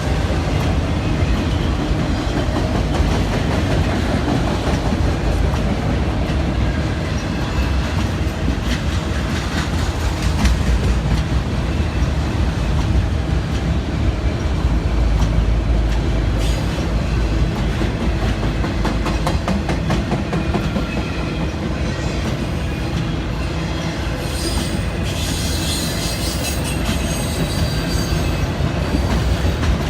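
Slow CSX freight train of autorack cars rolling past: a steady rumble with wheels clicking over the rail joints, and a high-pitched wheel squeal for a few seconds near the end.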